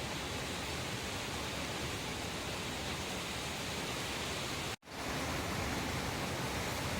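Steady, even rushing noise with no pitch, cut off for a split second about five seconds in and then resuming unchanged.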